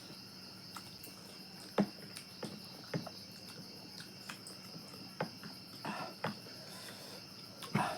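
Eating sounds during a spicy-food mukbang: about eight irregular mouth smacks and clicks from chewing and slurping, the loudest at about two seconds and near the end. A steady high-pitched insect-like drone runs underneath.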